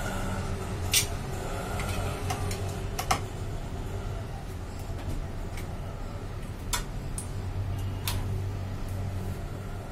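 A handful of sharp, scattered clicks and taps of a thin metal hand tool against the metal frame and plastic parts inside an opened Xerox WorkCentre copier, two of them close together about three seconds in, over a low steady hum.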